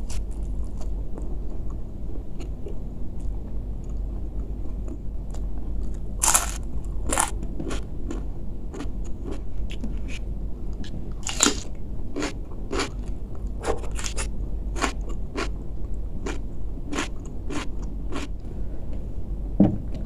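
Close-up biting and chewing of crunchy raw vegetables (lalapan) dipped in sambal terasi: a run of sharp, irregular crunches that thicken from about a third of the way in. There is a low thump near the end.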